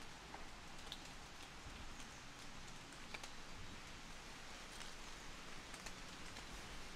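Light rain: a faint steady hiss with scattered, irregular drip ticks.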